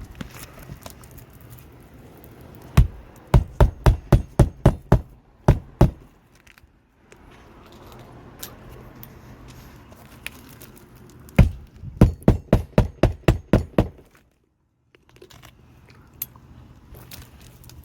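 Roofing nails being hammered into a replacement laminated asphalt shingle: two runs of quick, sharp hammer blows, each run of about ten strikes.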